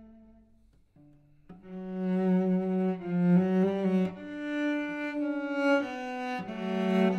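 Cello playing a slow classical phrase. A held note fades almost to silence, and after a short pause the cello starts a new phrase about a second and a half in: long bowed notes that step up and down in pitch and grow louder.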